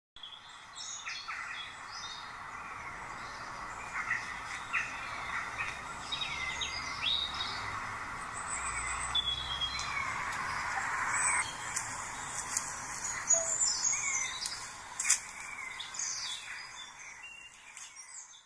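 Several songbirds singing and chirping together over a steady background hiss: many short whistles and chirps, some rising or falling, with a few louder sharp calls about two-thirds of the way through.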